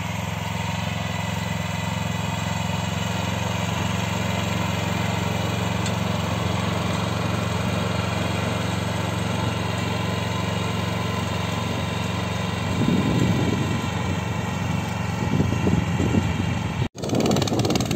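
Homemade mini tractor's small engine running steadily as the tractor drags a harrow over tilled soil, with a brief break near the end.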